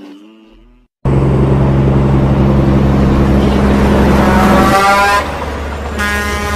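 Semi-trucks on a highway: about a second in, a loud, steady multi-note air horn comes in over engine and road noise. A rising tone follows past the middle, and another horn blast comes near the end.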